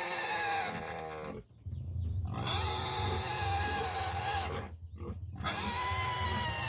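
Pigs squealing: about three long, high-pitched, drawn-out squeals, broken by two brief pauses.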